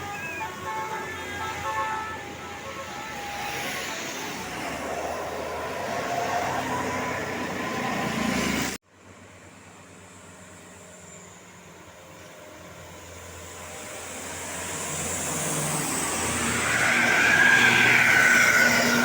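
Road traffic with large buses passing. The sound cuts off sharply about nine seconds in, then builds to a loud pass-by near the end as a vehicle comes close with a horn sounding.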